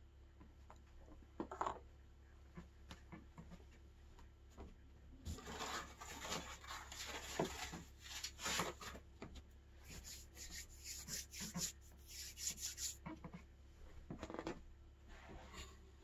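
Irregular rubbing and rustling of objects being handled, in scratchy bursts. It is heaviest from about five seconds in to about thirteen, with a few light knocks.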